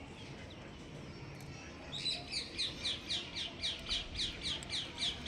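A bird calling: a fast run of repeated high chirps, each falling in pitch, about four or five a second, starting about two seconds in.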